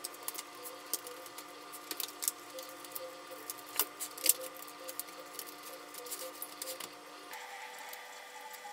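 Light plastic clicks and clatters of disposable food containers and a serving utensil being handled, in scattered taps with the loudest pair about four seconds in.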